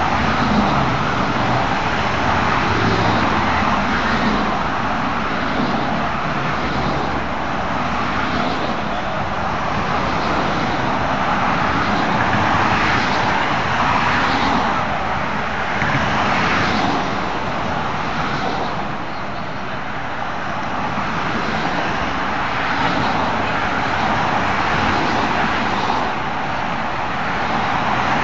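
Road noise from a motorcade of cars driving past: a steady hiss of tyres and engines that swells briefly several times in the middle as vehicles go by.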